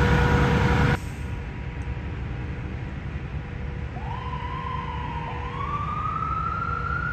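Ambulance siren starting up in wail mode: the pitch rises, dips about a second later, then climbs again more slowly and higher, over light traffic noise. Before it, a louder rumble of running vehicle engines with a steady hum cuts off abruptly about a second in.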